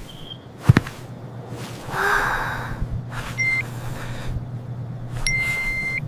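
Cartoon sound effects: a sharp click, a short burst of noise, and two high electronic beeps over a low steady hum.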